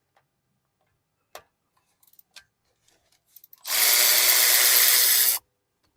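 A handheld power tool runs in one burst of about a second and a half, spinning out a brake caliper bolt. A few light clicks and taps come before it.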